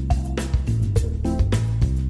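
Instrumental background music with a steady beat and a bass line.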